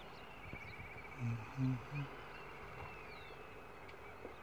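Three short, low-pitched vocal sounds in quick succession about a second in, over a faint, steady outdoor background.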